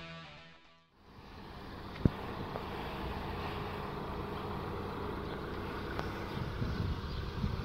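Intro music fades out within the first second, giving way to a steady vehicle hum outdoors. A sharp click sounds about two seconds in, and irregular low rumbles come near the end.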